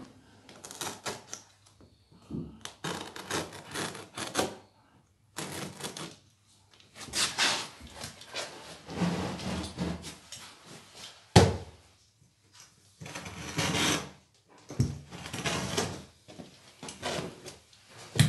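Irregular scraping and rustling of carpet being pushed and tucked down along the skirting board, in short bursts, with one sharp knock about eleven seconds in.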